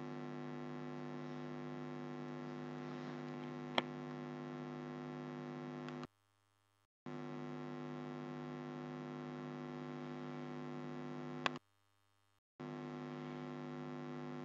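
Steady electrical mains hum, with two sharp single clicks, one about four seconds in and one near eleven and a half seconds. The hum cuts out twice for about a second each time.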